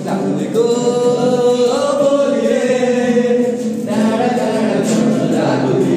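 Several young male voices singing a song together to an acoustic guitar, in long held notes with a short break about four seconds in before the next line.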